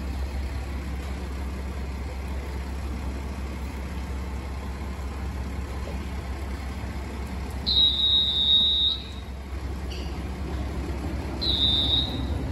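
JR Shikoku 6000 series electric train starting slowly out of the station over a steady low rumble. Two high-pitched wheel squeals: one lasting about a second, about 8 seconds in, and a shorter one near the end.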